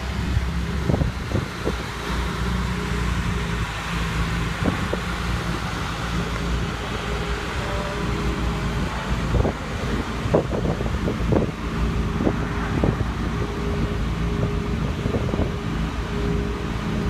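Ferrari 458 Italia's V8 idling steadily, its pitch holding even, with wind buffeting the microphone in short gusts.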